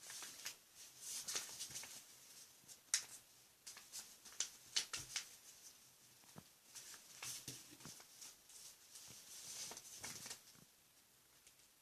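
A sheet of paper rustling and being creased by hand while it is folded, in short irregular crinkles and scrapes with a few sharper snaps, quieter near the end.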